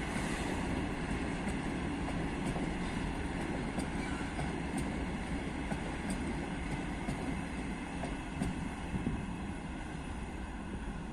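A train running on the track: a steady rumble with faint scattered clicks, slowly getting quieter near the end.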